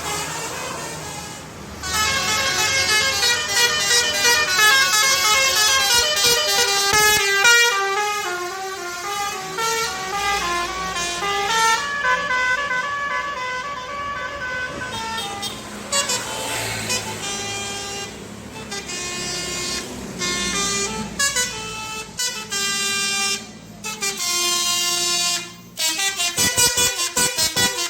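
Indonesian bus 'telolet' musical air horns playing a tune of quick stepped notes, several pitches sounding together. Near the end the horns break into rapid short repeated blasts.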